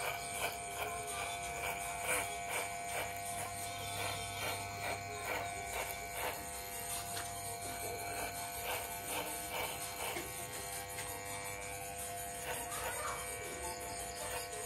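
Electric hair clipper buzzing steadily as it cuts short hair at the nape and around the ear.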